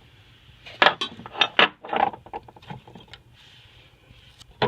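Objects being handled and set down: a burst of knocks, clatter and rustling about a second in, quieter handling after, and a single sharp click near the end.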